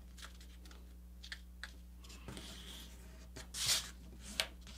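A square sheet of paper being folded and creased by hand on a cutting mat: faint rustles and soft taps, with a louder rustle of the crease being pressed about three and a half seconds in.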